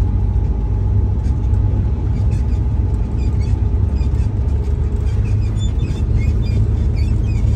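Tractor-trailer truck's diesel engine running steadily under way, a deep, even rumble heard from inside the cab.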